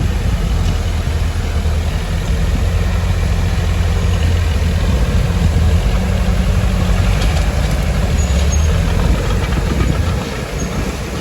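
Heavy diesel engine of earthmoving machinery running steadily, a loud low rumble with a few faint clicks about two-thirds of the way through.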